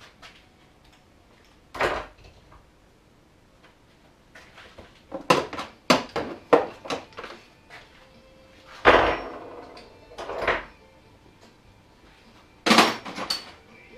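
Metal hand tools clinking and clanking against the snowmobile's engine and exhaust parts in a series of separate knocks, some in quick clusters. Near the end, a clatter at the steel tool chest as a drawer is worked.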